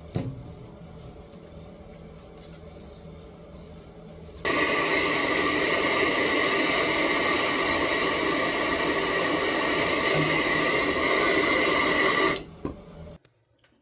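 A loud, steady hiss that starts abruptly about four and a half seconds in and cuts off sharply near the end, after a stretch of faint low hum.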